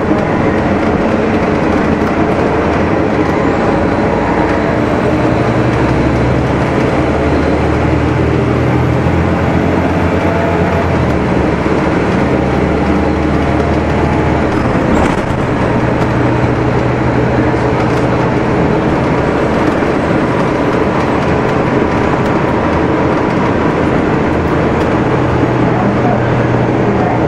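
Cummins ISL diesel engine of a 2006 Gillig Phantom 40-foot transit bus running. It is loud and steady, and its low hum shifts a little in pitch now and then.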